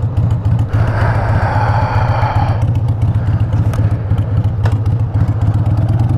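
Harley-Davidson Sportster's air-cooled V-twin running at low speed as the bike rolls away, a steady low throb of rapid exhaust pulses. About a second in, a rushing noise rises over the engine for a couple of seconds.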